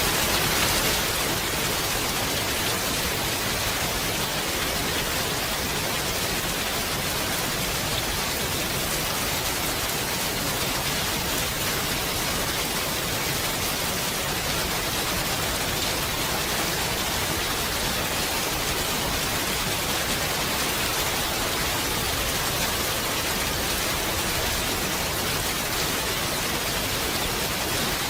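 Steady, even rain falling, an unbroken hiss of drops with no distinct patter or other sounds.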